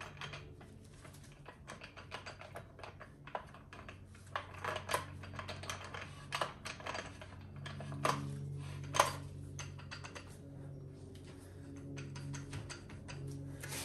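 Quick, irregular small metal clicks and ticks as a TH400 planet carrier is turned by hand and worked down into mesh over the sun gear shaft, with two louder clanks about eight and nine seconds in. A steady low hum runs underneath.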